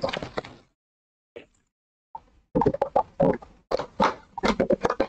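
A 2023 Topps Chrome Black baseball hobby box being handled and opened by hand: a run of quick cardboard clicks, taps and scrapes, busiest in the second half.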